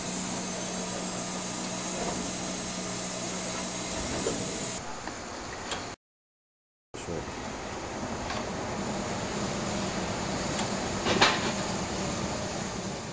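Steam locomotive cab noise: a loud steady hiss with a high steady tone and a low hum, which drops off suddenly about five seconds in. After a brief silence, a standing steam locomotive gives a softer steady hiss, with a single sharp clank near the end.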